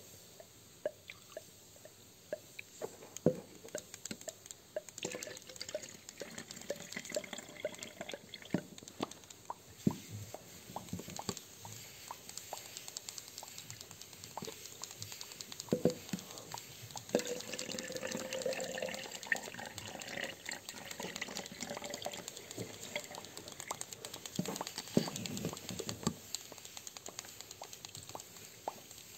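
Hand-made soundscape of water sounds: irregular drips and plinks with pouring and trickling liquid, made with classroom materials to imitate an underwater sea scene. A brief wavering tone sounds in the middle.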